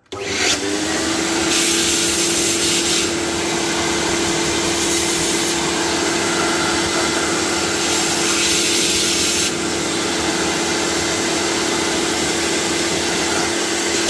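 Electric dust cleaner running: its motor spins up over about half a second to a steady hum, with a rushing air noise that swells and eases a few times as it clears dust off a laptop motherboard.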